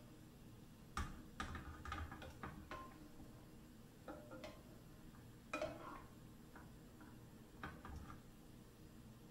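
A spoon clicking and scraping in a saucepan of broth, with the pan knocking on a gas burner grate as it is tilted and set down: scattered light clicks and knocks that ring briefly. They bunch up about a second in, again around five and a half seconds, and near the end.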